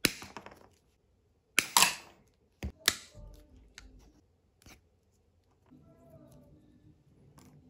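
Sharp clicks and clacks of small parts and tools being handled on a workbench. The loudest are a pair about one and a half seconds in, and a faint low hum comes in during the second half.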